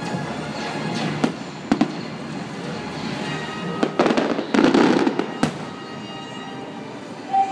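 Aerial fireworks shells bursting: sharp bangs about a second in and near two seconds, then a dense burst of crackling between about four and five seconds and another bang just after, over the show's music.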